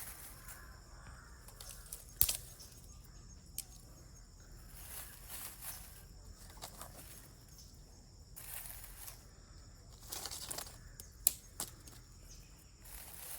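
Dry leaves and sticks being handled for a fire: intermittent rustling and crinkling with a few sharp cracks.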